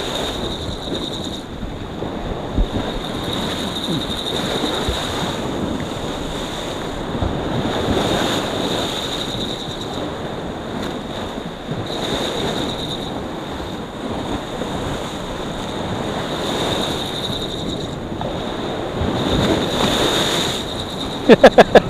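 Choppy sea surging and breaking against rocks, swelling and easing about every four seconds, with wind buffeting the microphone. A few sharp, loud sounds come right at the end.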